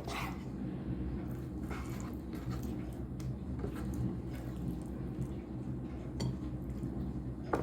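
Kitchen handling sounds: a few scattered soft clicks and taps of dishes or utensils, with a sharper click near the end, over a steady low hum.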